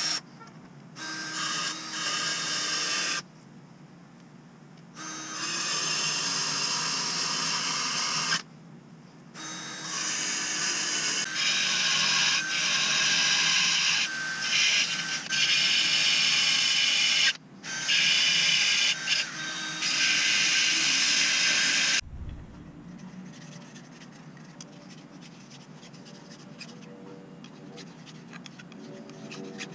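Cordless drill spinning a Dremel cutting bit through aluminium angle, a high-pitched grinding whine in several runs with short pauses between them. It stops suddenly about three-quarters of the way through, leaving only faint handling noise.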